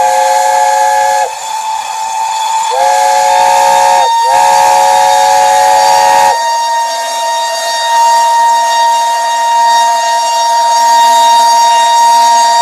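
Two steam locomotive whistles blown together: the LNER A4's three-note chime whistle sounds in three long blasts, and the GWR King's single-note whistle joins about three seconds in and holds one steady note almost to the end, over a hiss of escaping steam.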